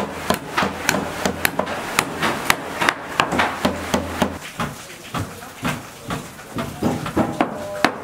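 Hand hammer striking a steel rebar cage set in wooden formwork: sharp blows in quick succession, several a second.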